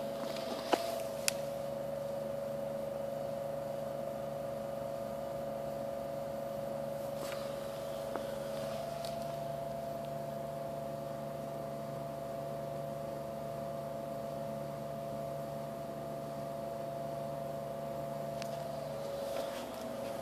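A steady machine hum with two fixed pitches and a lower drone, unchanging throughout, with two sharp clicks about a second in.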